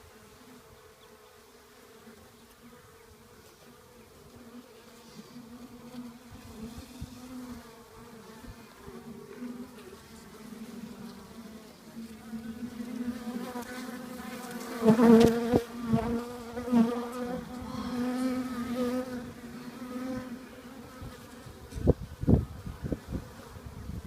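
Honeybees buzzing around an open Kenyan top-bar hive: a steady hum that grows louder and fuller about halfway through. A few low thumps near the end.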